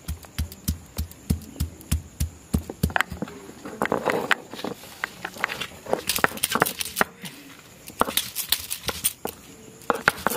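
A cylindrical stone pestle pounding garlic cloves and a dried red chilli on a flat grinding stone, steady knocks about three a second. From about four seconds in the stone is rolled and pressed across the slab, crushing the garlic with quicker, gritty clicks and crackles.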